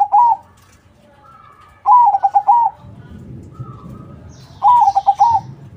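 A crossbred ('crossing') zebra dove (perkutut) sings its cooing phrase: an opening note, a quick run of short stuttering coos, then a closing note. The phrase repeats about every two and a half seconds, the end of one at the start and two full phrases after it, with faint chirps of other birds in between.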